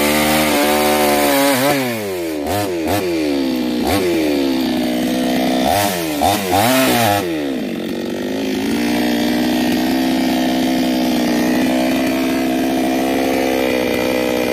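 Gasoline two-stroke chainsaw with a 22-inch bar cutting through a sonokeling (Indonesian rosewood) log at full throttle. From about two seconds in, the engine revs rise and fall several times as the chain works in the cut. From about eight seconds it runs steady at lower revs.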